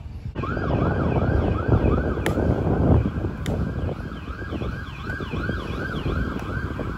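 Emergency vehicle siren in a fast yelp, its pitch sweeping up and down about three times a second without a break, over a dense low rushing noise. Two sharp smacks cut through, a couple of seconds and three and a half seconds in.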